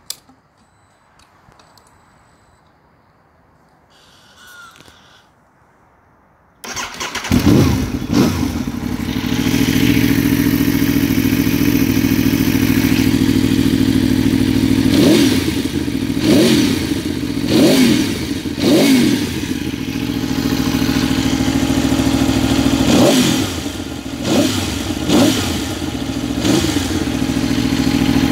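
Aprilia Tuono V4 R's 1000 cc V4 engine through a full Arrow exhaust system. A click comes at the start, and about six and a half seconds in the engine starts abruptly and settles into a loud idle. In the second half it takes two sets of four quick throttle blips.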